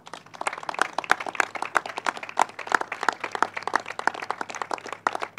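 Applause: a group of people clapping, with the separate hand claps distinct.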